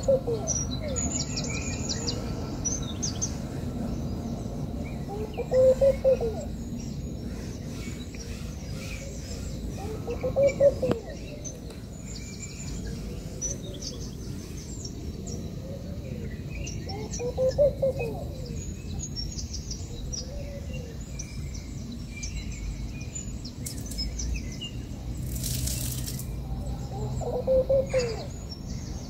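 Doves cooing: a short phrase of soft rising-and-falling notes, repeated about every five to six seconds. Small birds chirp faintly and high-pitched throughout, over a steady low background rumble.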